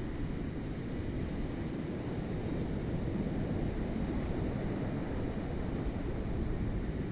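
Ocean surf breaking and washing onto the beach as a steady low rumble, with wind noise on the microphone.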